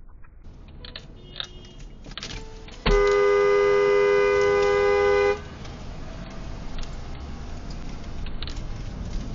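Car horn held in one long two-note blast of about two and a half seconds, starting about three seconds in, over steady traffic noise.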